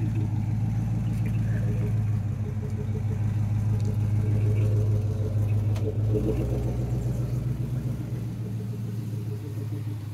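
Jeep with its winch pulling under load: a steady low mechanical hum that shifts about six seconds in and slowly eases off near the end.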